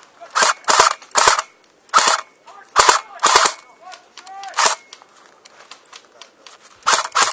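Airsoft guns firing close by: about nine sharp shots and short bursts at irregular intervals, with a pause in the middle and two quick ones near the end.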